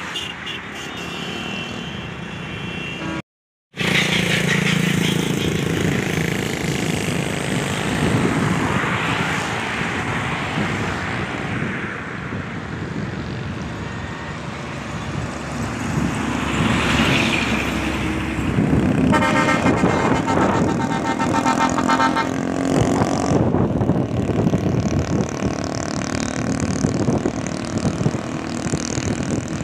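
Highway traffic going past: trucks and cars with engines and tyre noise, and a vehicle horn sounding for a few seconds about two-thirds of the way through.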